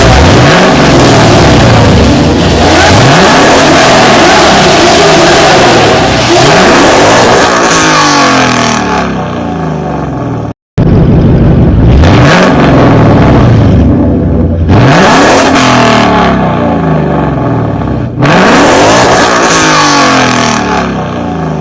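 A 2023 Lamborghini's engine revving hard again and again, each rev a sharp rise in pitch that settles back, several times over. The sound cuts out abruptly for a split second about halfway.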